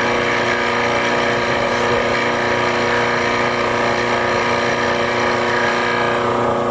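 Horizontal boring machine's motor running steadily at about 1,000 RPM while a brad-point bit bores a 3/8-inch dowel hole into alder wood. The higher hiss of the cut fades near the end, leaving the steady motor hum.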